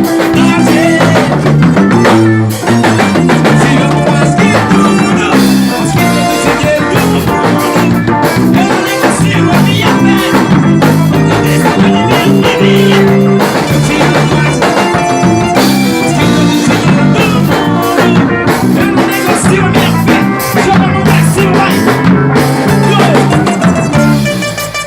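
Gospel band playing live in a studio rehearsal: electric guitar and drum kit over a steady bass line, loud and continuous, easing off just before the end.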